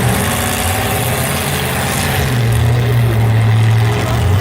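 Demolition derby car engines running, a steady low drone that grows louder about halfway through.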